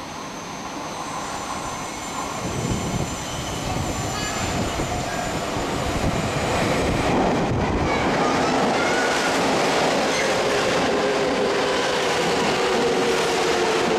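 Tokyo Metro 7000 series subway train pulling into the station, growing louder as it approaches, with thin high wheel squeals in the first few seconds. It then runs steadily past the platform with rumbling wheels and a whine that slowly falls in pitch as the train slows.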